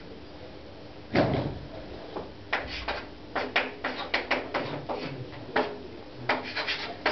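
Chalk on a blackboard as formula symbols are written: a quick run of short taps and strokes near the middle and another near the end, after a single heavier knock about a second in.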